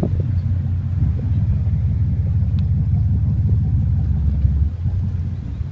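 Boat engine running with a steady low rumble as the snorkel boat gets underway; the deepest part of the rumble eases off near the end.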